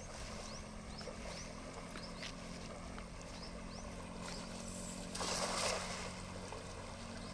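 Shallow river water running steadily, with short high chirps in the first couple of seconds. About five seconds in, a thrown cast net lands on the water with a brief hissing splash of about half a second, the loudest sound here.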